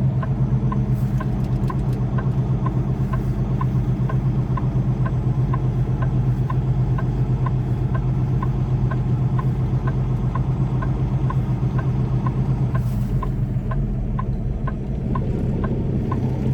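Semi truck's diesel engine idling at a standstill, heard from inside the cab, with a steady light ticking about two or three times a second over the hum.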